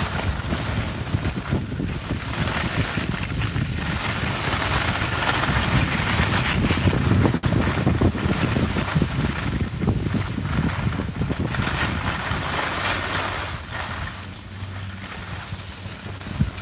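Wind rushing over the microphone of a camera carried by a skier going downhill, mixed with skis hissing and scraping over packed snow. It quietens a little near the end.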